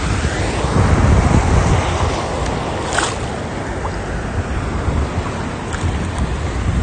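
Shallow ocean surf washing and sloshing around someone wading thigh-deep, with wind buffeting the phone's microphone in a fluctuating low rumble.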